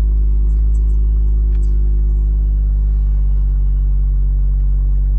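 BMW Z4 M40i's turbocharged inline-six heard from inside the cabin, a steady low drone at constant engine speed with a few faint ticks.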